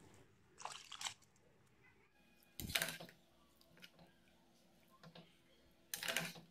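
Metal ladle tipping soaked rice into boiling liquid in a pressure cooker pot and stirring it, heard as three short bursts of scraping and splashing: about a second in, near three seconds, and at the very end.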